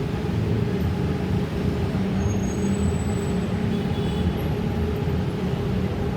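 Steady low rumble of road traffic, with heavy vehicles running close by; no siren sounds.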